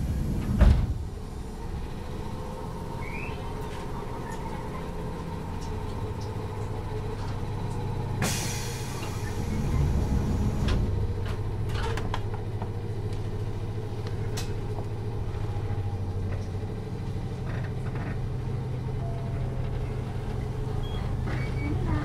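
Interior sound of a Toyama Chiho Railway 10020 series resistor-controlled electric train standing at a station: a loud thump about half a second in over a steady hum of onboard equipment. About eight seconds in a sharp air hiss sounds as the train pulls away, and the running sound grows slightly louder after that.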